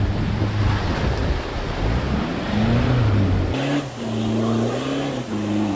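Off-road vehicle's engine running and revving on a muddy trail, its pitch rising and falling. The sound changes abruptly about three and a half seconds in.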